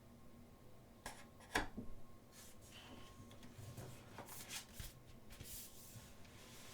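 Faint paper rustling and soft taps from a thick photobook being handled and its pages turned, with a few light clicks about a second in.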